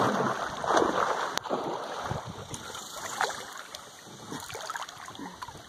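Wind and water noise around a small boat on a river, uneven and gusty near the start, with a single sharp click about a second and a half in.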